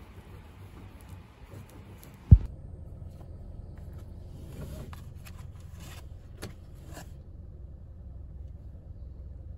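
Low, steady rumble of a car heard from inside the cabin. A single sharp thump about two seconds in, then a few light clicks and rustles.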